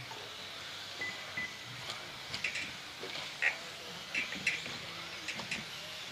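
Electric 1:10-scale RC buggies and short-course trucks running on an indoor carpet track. Their motors and tyres make a steady high hiss, broken by several sharp clacks as the cars land jumps and hit the track boards.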